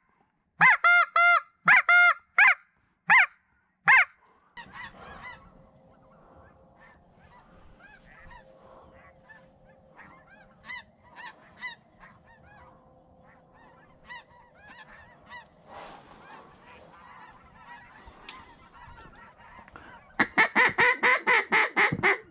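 Geese honking. About eight loud, clear honks come in the first four seconds. Then a distant flock of snow geese keeps up many faint overlapping calls, and near the end a fast, even run of about ten loud honks follows.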